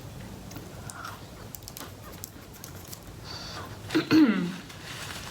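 Quiet chewing of the last bite of a crispy-outside, soft-inside chocolate chip cookie. About four seconds in comes a short, loud voiced sound from the eater, falling in pitch.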